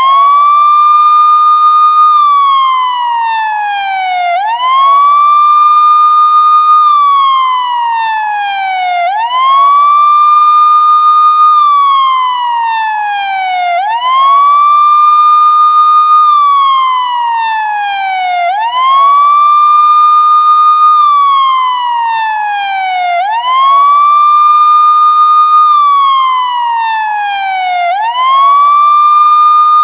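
Loud police siren sounding in wail mode. Each cycle rises quickly to a high steady tone, holds it for about two seconds, then falls slowly. The cycle repeats evenly about every four and a half seconds.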